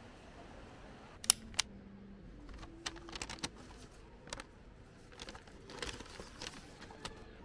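Close handling noise: irregular sharp clicks and light crackles, the two loudest close together about a second in, then a scattering of softer ones.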